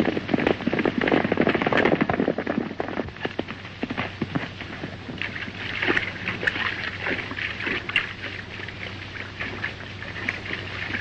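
Horses galloping: a rapid clatter of hoofbeats for the first few seconds, giving way to splashing as a horse charges through a river. A steady low hum runs underneath.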